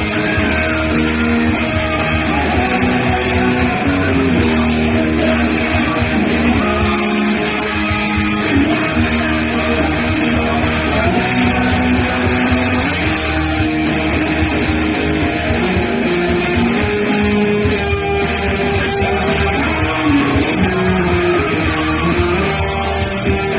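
Rock music in which a guitar carries a sustained, shifting melody over a steady low bass.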